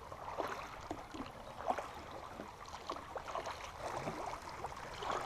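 Creek water rushing around a kayak, with small irregular splashes and knocks from paddling.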